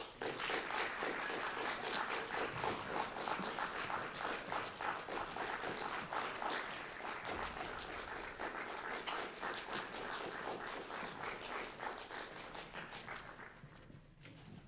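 Audience applause, breaking out suddenly as the music ends and dying away near the end.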